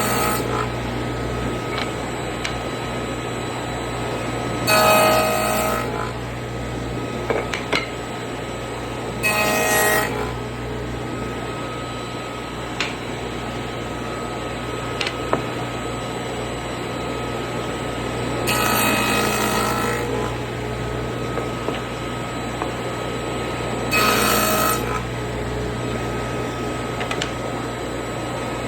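Table saw with a dado stack running steadily, cutting tenons in wooden rails in repeated passes. The cutting sound rises five times, a second or so each, several seconds apart, with light knocks of wood being handled between passes.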